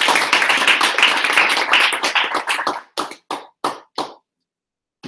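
Audience applauding: a dense round of clapping that thins to a few scattered claps about three seconds in and stops about a second later.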